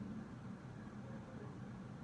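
52-inch Evergo Roma ceiling fan running on high speed: a steady low hum with a soft, even rush of air.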